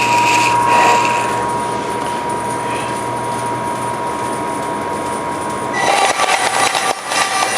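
Vertical traveling-table bandsaw running, its blade cutting through a roll of thin plastic thermoforming sheet: a steady tone over running noise that shifts lower and turns rougher about six seconds in.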